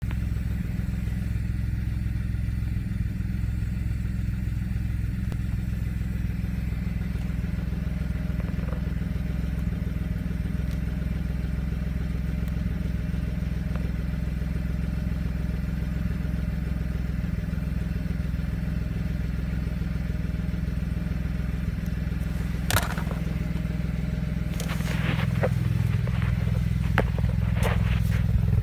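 2007 BMW 335's engine idling steadily; the owner reports it is misfiring and throwing misfire codes after a valve cover gasket change. About three-quarters of the way through the running note steps up and grows a little louder, with a sharp click just before and a few more clicks near the end.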